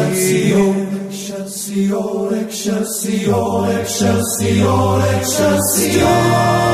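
Background music: slow choral, chant-like singing with held notes in harmony. A deep low note comes in about three seconds in.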